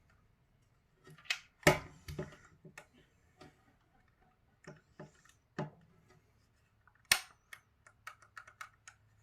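Hard plastic parts of a PS5 controller clicking and knocking as the R1/L1 shoulder button is pressed back into place: a series of separate clicks, two of them sharper, about two seconds in and about seven seconds in, then a quick run of small clicks near the end.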